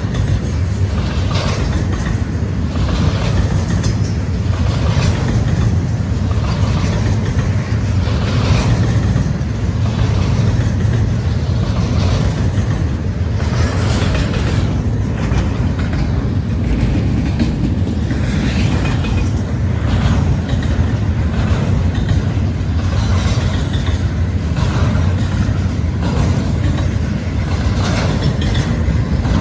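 Freight train of empty intermodal flatcars rolling past: a steady low rumble with repeated wheel clacks over the rail joints.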